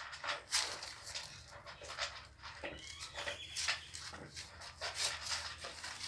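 Seven-day-old pit bull puppies whimpering and squeaking as they crawl over one another, with many short snuffles and rustles throughout and a few thin high whines around the middle.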